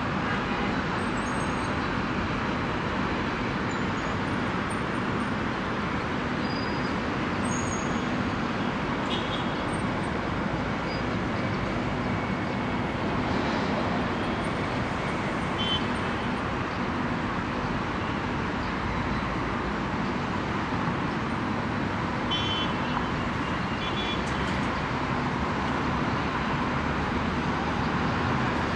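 Steady hum of city road traffic from the streets below, with a few faint, brief high chirps now and then.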